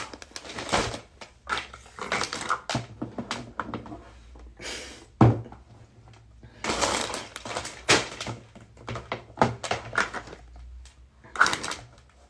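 Irregular crinkling, rustling and knocks from handling a clear plastic bag and the phone, with one sharp knock about five seconds in.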